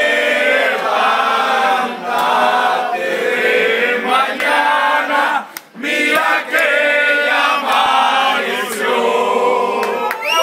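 A group of people singing a birthday song together, with a short break about halfway through.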